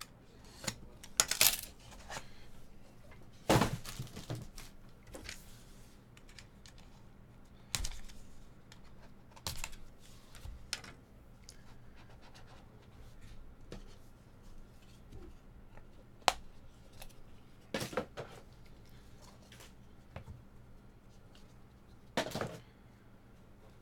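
A Panini National Treasures card box being opened by hand: a blade slitting the seal, then the cardboard box and inner box sliding and tapping, and cards set down in a stack. Scattered sharp clicks, scrapes and rustles a few seconds apart.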